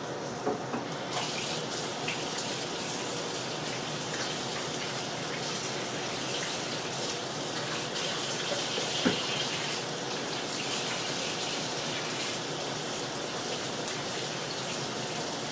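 Faucet running steadily as hands are washed under it, with a few light knocks, one sharper about nine seconds in.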